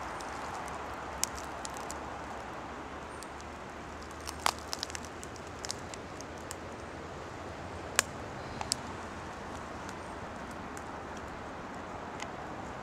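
Steady rushing of a mountain brook, with scattered sharp clicks and ticks over it, a cluster about four and a half seconds in and the loudest about eight seconds in.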